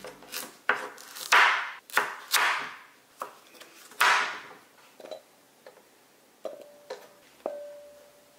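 Kitchen knife cutting through raw kabocha squash onto a wooden cutting board: about six crunching chops in the first four seconds. Then lighter knocks as the chunks go into a glass bowl, which rings with a short clear tone twice near the end.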